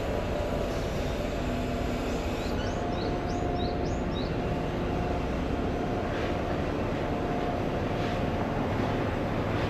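Steady rumble and hum of urban traffic, with a small bird chirping a quick run of about six short high notes about two and a half seconds in.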